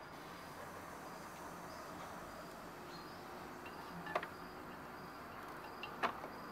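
Loop trimming tool scraping a red stoneware pot turning on a potter's wheel, a steady gritty hiss, with two sharp clicks about four and six seconds in.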